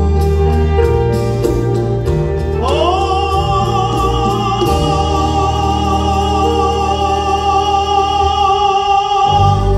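Male tenor singing a bolero with orchestral accompaniment of strings and guitars. About two and a half seconds in he slides up to the song's closing high note and holds it with vibrato for about six seconds, the orchestra ending with him just before the end.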